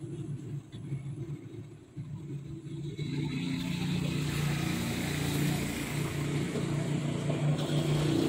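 A steady low engine rumble that grows louder and brighter about three seconds in.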